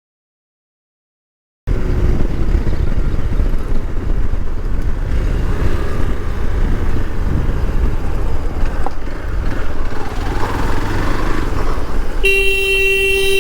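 Steady low rumble of wind and engine from a moving motorcycle, starting abruptly after a moment of dead silence. Near the end a vehicle horn sounds once for about a second and a half.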